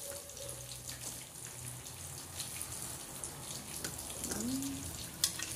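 Fish-head broth being poured from a pot through a metal mesh sieve into a saucepan: liquid splashing and trickling, with a few faint clicks.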